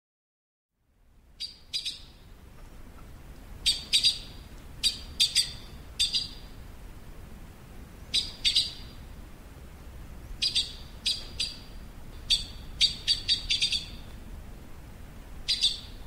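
Yellow-billed blue magpie calling: short, sharp calls, mostly in pairs or quick clusters, repeated every second or two over faint low background noise. The calls begin about a second in, after a brief silence.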